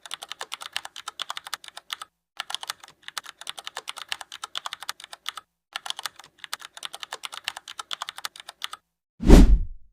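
Fast typing on a computer keyboard, several keystrokes a second, in three runs with two short pauses. Near the end the typing stops and one loud, deep thump follows.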